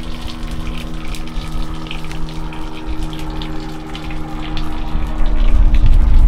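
A motor on the boat running with a steady hum, with water sloshing against the hull. A low rumble of wind on the microphone grows near the end.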